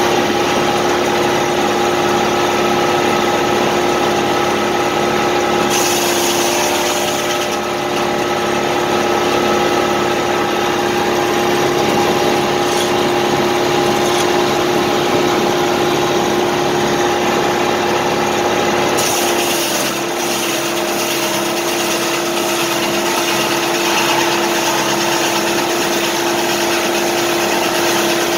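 Tractor engine running steadily at throttle with a circular sawmill blade spinning. About two-thirds of the way through the sound changes and a hiss comes in as the blade cuts into a log.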